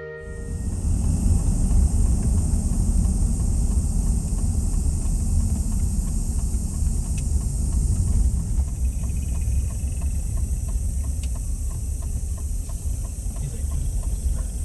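A vehicle driving along: a steady, loud low road-and-engine rumble with a hiss over it.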